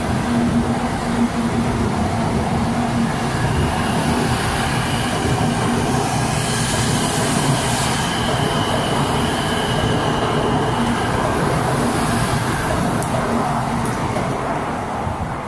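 A 700 series Shinkansen train pulling out of the station and gathering speed, with a steady rush of wheels and running gear and a low hum. A higher whine stands out for a few seconds in the middle, and the noise begins to fade at the very end as the train clears.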